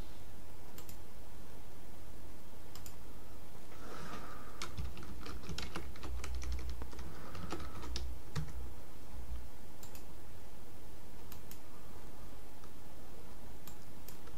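Typing on a computer keyboard: a quick run of keystrokes in the middle, with single mouse clicks scattered before and after.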